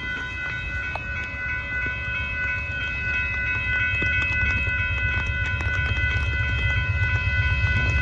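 Grade-crossing warning bells ringing steadily, over a low rumble that grows louder from about three seconds in as an Amtrak passenger train approaches the crossing.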